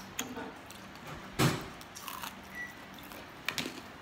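Biting and chewing crisp fried food close to the microphone, with a sharp loud crunch about one and a half seconds in and another near the end.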